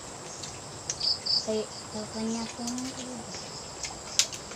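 Crickets and other insects chirping steadily, with a pair of louder high chirps about a second in. A person's voice sounds faintly in the middle, and a sharp click comes near the end.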